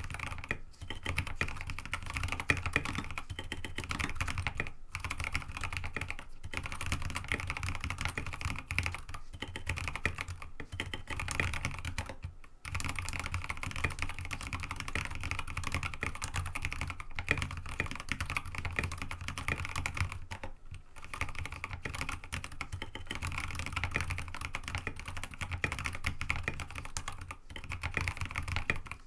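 Fast, continuous typing on an mStone Groove T87A mechanical keyboard with Kailh Box Ancient Gray switches, MA keycaps and an aluminium plate, with a steady stream of key strokes. There are brief pauses in the typing about 5, 12½, 21 and 27½ seconds in.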